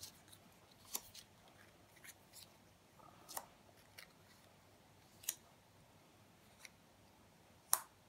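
Lightweight die-cut cardstock pieces being picked up, shuffled and set down: scattered soft paper clicks and rustles, about ten in all, the sharpest one near the end.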